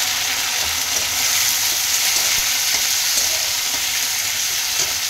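Onions and freshly added chopped tomato sizzling steadily in hot oil in a kadhai, stirred with a metal spatula that now and then scrapes against the pan.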